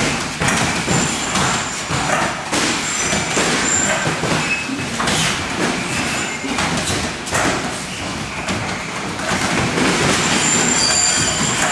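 Irregular knocks and thuds from MMA sparring and grappling on gym mats, over a steady rumbling din.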